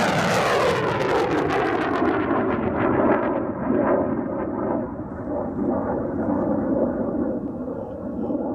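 Rocket launch roar after ignition: a loud, crackling rush that thins over the first couple of seconds into a steady rumble, fading somewhat near the end.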